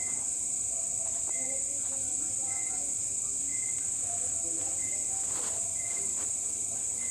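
Crickets chirping: a steady, high, unbroken trill, with a shorter chirp repeating about once a second.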